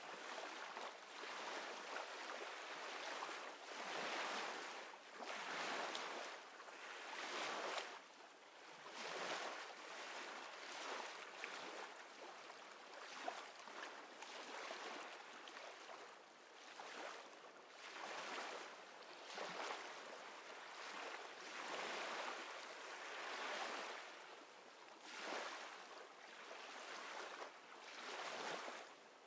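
Faint wash of sea waves, a soft hiss that swells and fades every two seconds or so.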